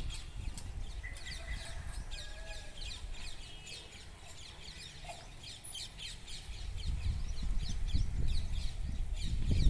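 Many birds chirping in a dense, continuous chatter of short calls. A low rumble builds in the second half.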